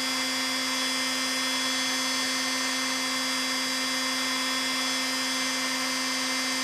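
Electric heat gun running steadily on high: a constant motor hum with fan hiss.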